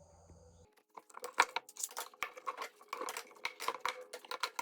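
Woodworking clamps being loosened and taken off a glued-up wood blank: a fast, irregular run of clicks and rattles, starting about a second in.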